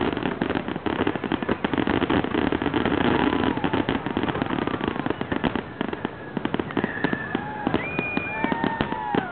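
Fireworks finale: a dense, rapid barrage of bangs and crackles from many shells bursting together, which thins out after about six seconds. Near the end, people start whooping and cheering.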